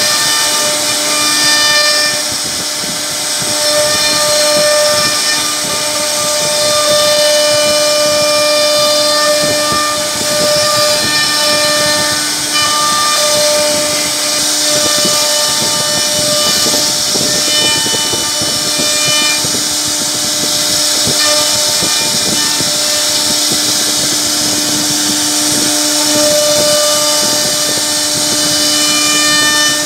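CNC router spindle running steadily, its bit carving grooves into a wooden board: a high whine with a hiss of cutting wood.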